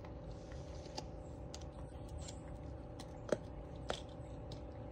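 A dog gnawing on a chew: a few faint, sharp clicks, the loudest near the middle, over a low steady hum.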